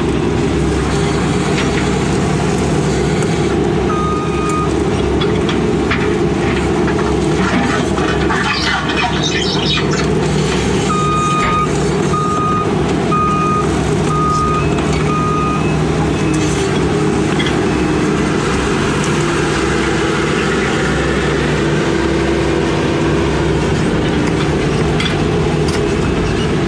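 Case CX80 excavator's diesel engine working under load, with knocking and clanks about eight to ten seconds in and the engine note rising later on. A backup alarm beeps once about four seconds in, then five times in a row a few seconds later.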